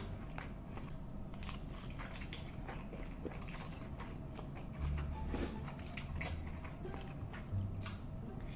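Close-miked eating of a huge mouthful of saucy noodles: wet mouth sounds of slurping and chewing, with many sharp smacks and clicks.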